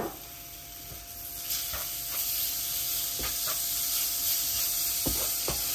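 Diced lamb sizzling in hot oil in a frying pan with fried onions and spices, the sizzle rising about a second and a half in and then holding steady as the lamb releases its water. A few light knocks of a wooden spatula stirring it near the end.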